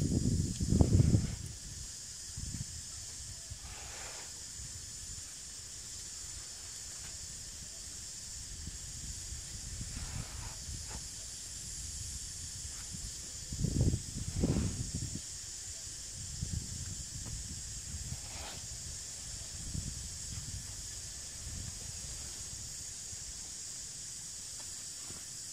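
A shovel digging and scraping wet mud around a cow stuck in a bog, heard as a few dull thumps and scrapes, the loudest about 14 seconds in. Under it runs a steady high hiss.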